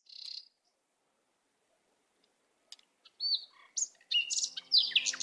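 Birds chirping: one brief chirp at the start, then after a pause of about two seconds a run of chirps and quick falling whistles that grows busier toward the end.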